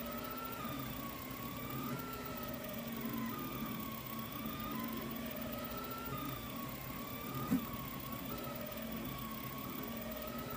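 3D printer running a print: its stepper motors whine in slowly rising and falling pitches as the head moves, over a steady fan hum. A single sharp click comes about two-thirds of the way through.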